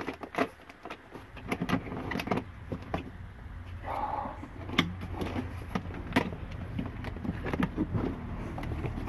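Metal latches of an old hard-shell banjo case being worked open by hand: scattered clicks and knocks over a low steady hum.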